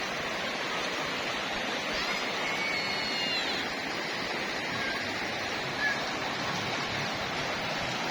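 Steady rush of river water flowing. A few faint, high calls sound over it about two to three and a half seconds in.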